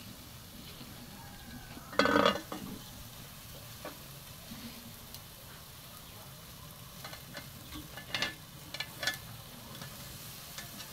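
Beef sizzling over charcoal on a metal grill, with a loud metal clank on the grill grate about two seconds in as a frying pan is set over the meat as a cover. A few lighter metal clicks follow near the end.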